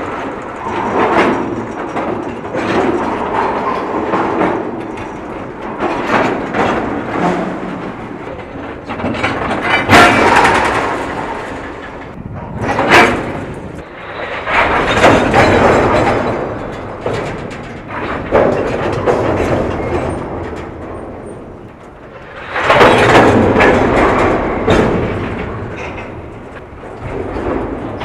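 Freight cars rolling past with repeated bangs and clanks as the slack in the couplers between cars runs in and out, over the rumble and clatter of steel wheels on the rails.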